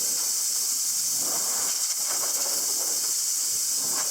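Compressed air blowing from an air nozzle in a steady, high hiss that runs without a break.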